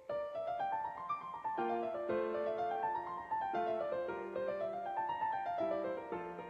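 Piano music: quick runs of notes rising and falling in repeated sweeps over held lower notes.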